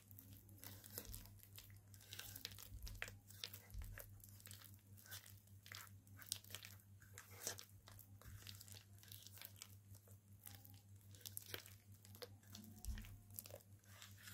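Faint, irregular squishing and light clicks of a hand mixing thick, coarsely ground urad dal batter in a stainless steel bowl.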